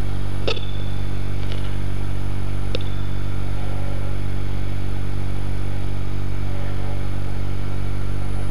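Wood lathe running steadily at about 1870 rpm, a constant motor hum, while a wire held against the spinning wooden bottle stopper burns lines into it by friction, giving three brief high squeaks in the first three seconds.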